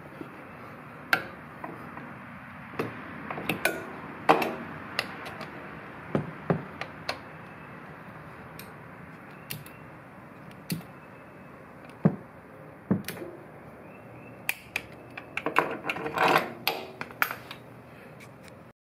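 Hand tools and metal fasteners clicking and knocking against the rear hub and suspension parts during reassembly, in irregular single clicks with a quick run of clicks about three-quarters of the way through.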